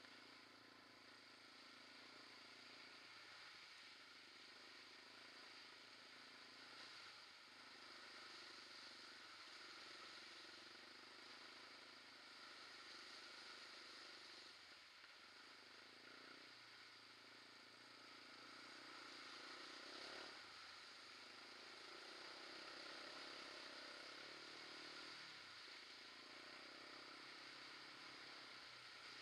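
Faint quad bike engine running as it rides a dirt trail, its note shifting up and down every second or two with the throttle, over a steady rushing noise.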